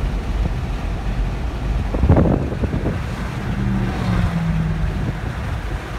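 Road and wind noise from a car driving on a highway, a steady low rumble with a louder gust about two seconds in and a faint low hum partway through.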